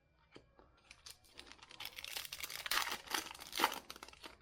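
Foil wrapper of a Bowman baseball card pack being torn open and crinkled, a run of crackling that builds after a second or so and peaks twice near the end.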